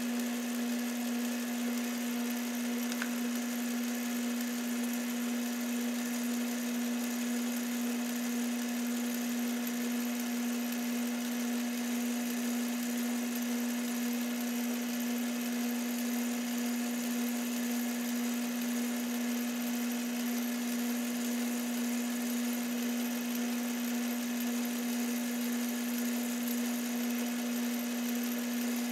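Metal lathe running at a steady speed with its chuck spinning, a strong, even motor hum.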